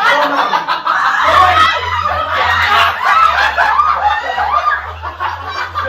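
A group of people laughing loudly together, several voices at once, as a charades answer is guessed.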